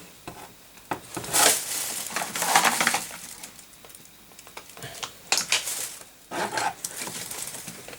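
Metal objects clattering and scraping as the DIY solder pot and its container are handled while being switched on. The clatter comes in several short bursts.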